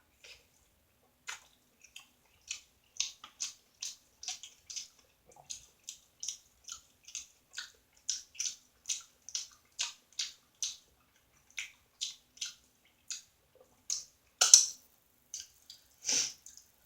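A person chewing food with the mouth open, a run of quick wet smacks and clicks, two or three a second, with two louder wet mouth sounds near the end.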